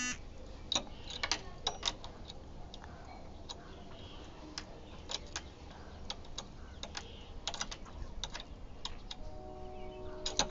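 Small keys clicking and clinking against a steel padlock while a child fumbles to fit a key into it: irregular metallic clicks.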